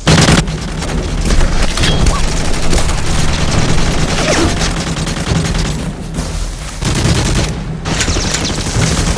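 Sustained automatic rifle fire in dense, rapid volleys, broken by short pauses about six seconds in and again near the end.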